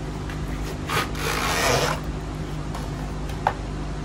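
Cricket bat grip being pulled out of its cardboard box: a scraping rub of cardboard and plastic packaging about a second in, lasting about a second, then a single sharp click near the end, over a steady low hum.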